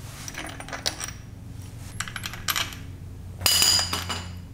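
Small metal clicks and clinks as the oil filter housing's bolts are worked loose by hand on an engine block, with a louder metallic clatter about three and a half seconds in.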